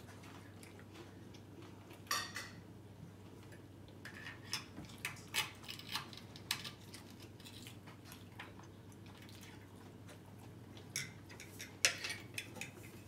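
Metal fork clinking and scraping on a dinner plate in short, scattered clicks: a few about two seconds in, a busy run in the middle, and another cluster near the end.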